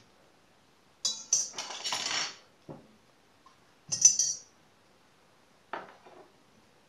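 A metal teaspoon clinking against a glass bowl and scraping while zucchini is hollowed out for stuffing. There is a run of ringing clinks and scraping about a second in, a single sharp clink at about four seconds, and a duller knock near six seconds.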